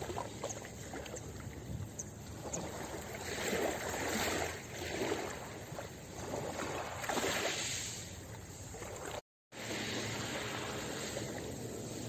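Small sea waves washing in over a pebble beach, the hiss swelling and falling in several surges. The sound cuts out for a moment about nine seconds in, then goes on as a steadier wash.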